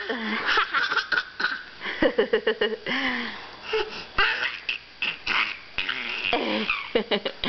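A baby laughing in a series of short, rapid bursts.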